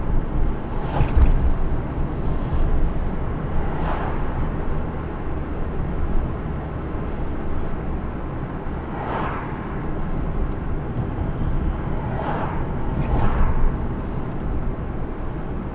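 Car driving on the road: a steady low rumble of engine and tyres, with several brief louder rushes, about a second in, around four and nine seconds, and twice near the end.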